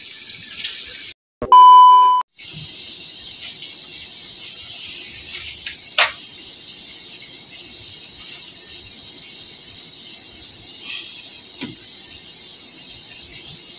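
A single loud electronic beep, a steady pure tone held for under a second about a second and a half in. A steady high hiss follows, with one sharp knock about six seconds in.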